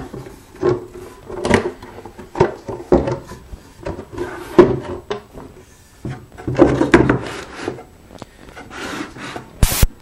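Wooden lid of a small box being lowered and closed onto a half mortise lock to test the fit of the newly mounted selvage: a string of wooden knocks and rubbing. A short, sharp noise comes near the end.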